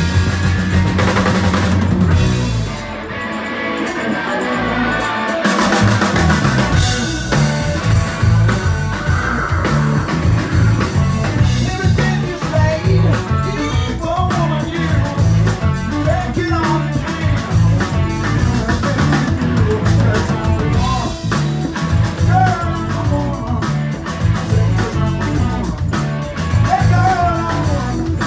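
Live prog-rock band playing loud: drums, bass guitar, electric guitar and organ. The bass and drums drop out for a few seconds early in the passage, then the full band comes back in, with a lead line bending in pitch over the top.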